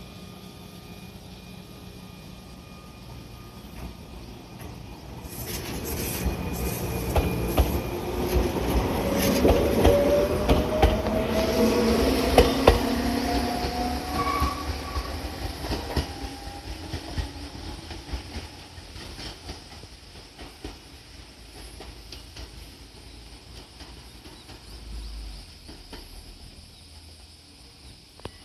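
Gakunan Railway electric train, a converted ex-Keio Inokashira Line car, moving along the track. Its wheels clatter over rail joints in quick sharp clicks, with a whine that rises steadily in pitch. The sound builds a few seconds in, is loudest near the middle, then fades as the train draws away.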